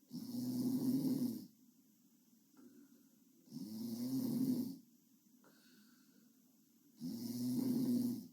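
A sleeping girl snoring: three loud snores about three and a half seconds apart, each lasting over a second, with quieter breathing between them.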